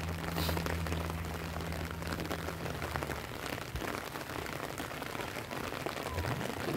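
Rain falling steadily, an even patter of fine drops ticking on the wet road and surroundings. A low steady hum underneath fades out about three seconds in.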